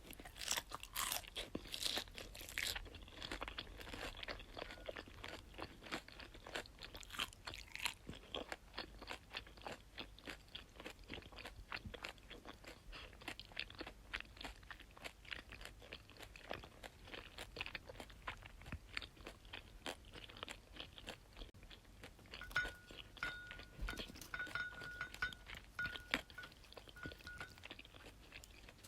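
Close-miked chewing of crunchy food: a dense, irregular run of crunches and crackles, strongest in the first few seconds. A faint, thin squeak comes and goes late on.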